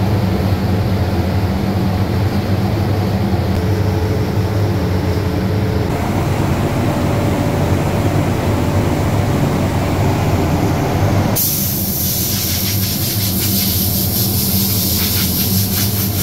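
Steady low hum of a workshop extraction fan. About eleven seconds in, a compressed-air blow gun starts hissing loudly and keeps on.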